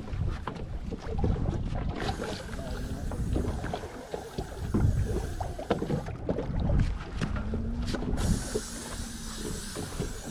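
Wind buffeting the microphone on a fishing boat at sea, with water sloshing against the hull and a few scattered knocks; a hiss comes in about two seconds in and again near the end.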